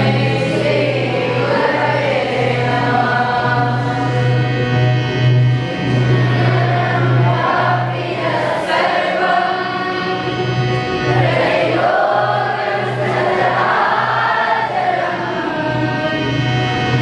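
A group of boys singing a devotional song together in unison through microphones, over a steady low hum.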